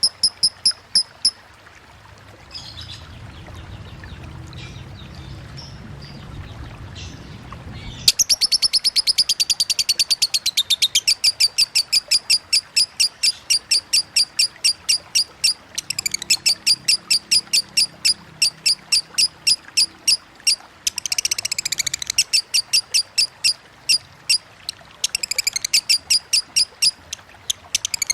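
Lovebird singing its long rapid 'ngetik' ticking song: a run of sharp, high, evenly repeated chirps, about three to four a second. It breaks off briefly at the start, and a low rush of flowing water with a few faint chirps fills the gap until the long run resumes about eight seconds in.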